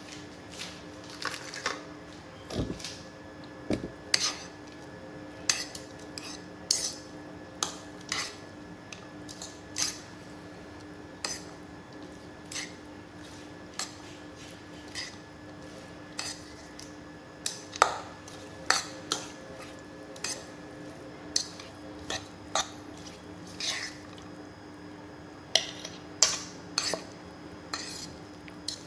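A fork clinking and scraping against a bowl while mixing noodles, with irregular clinks about once a second, some in quick pairs, over a steady low hum. A couple of duller knocks come in the first few seconds.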